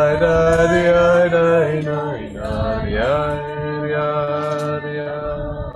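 A group singing a slow, wordless Hasidic tish niggun, with long held notes.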